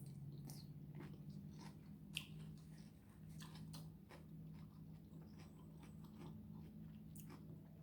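Faint chewing and biting: soft mouth sounds of someone eating, with scattered small clicks and crunches, over a low steady hum.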